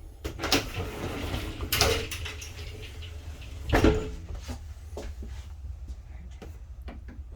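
Cabinet doors under a bathroom sink being opened and shut: a few knocks and clicks, loudest about two and four seconds in, with some rattling between.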